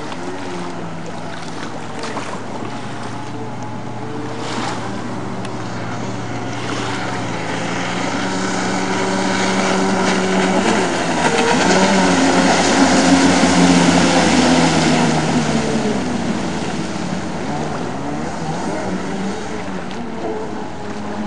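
Yamaha Wave Blaster jet ski's two-stroke twin engine revving up and down through tricks, with the hiss of its spray. It grows louder to a peak about halfway through as it passes close, then fades again.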